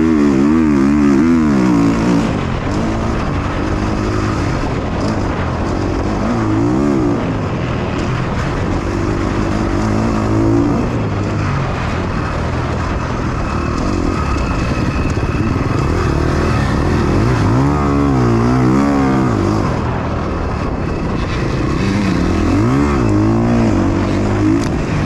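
KTM 350 XC-F motocross bike's single-cylinder four-stroke engine under hard riding, its pitch climbing and dropping repeatedly as the throttle is opened and rolled off, heard from a helmet-mounted camera over a steady rush of noise.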